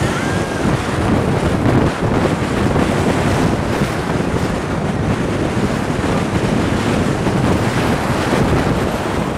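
Wind buffeting the microphone of a camera held outside a moving car, a steady rush of noise.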